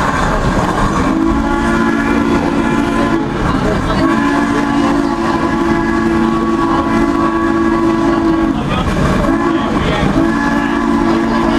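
A train's multi-note whistle sounding long blasts, the middle one the longest, the kind of signal given for grade crossings. Under it runs the steady rumble of the coach rolling on the rails.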